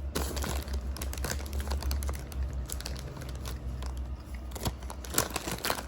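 Crinkling and crunching of BBQ Fritos corn chips and their bag: a dense, irregular run of small crackling clicks over a low steady hum.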